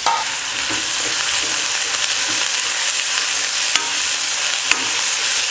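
Chopped onion and curry leaves sizzling steadily in hot oil in a kadai. In the second half a metal spoon stirs them, with a couple of sharp clicks against the pan.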